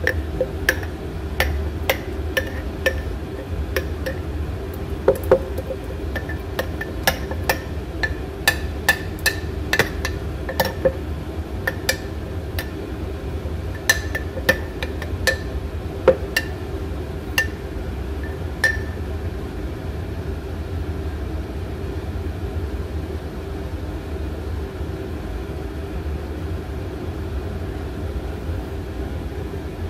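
Metal spoon stirring thick sourdough starter in a glass jar, clinking sharply against the glass in quick irregular strikes that stop about two-thirds of the way through. A steady low hum runs underneath throughout.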